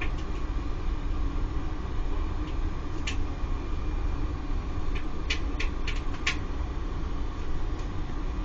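Circulation pump on a Laddomat 21 wood-boiler charging unit running with a steady low hum and rumble. Sharp clicks sound once about three seconds in, then four or five in quick succession a little past the middle.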